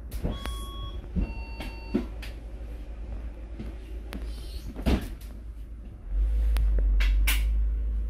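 Small clicks and knocks of plastic laptop-case parts being handled as a hot-glued power button piece is pressed into place. A loud low rumble comes in about six seconds in.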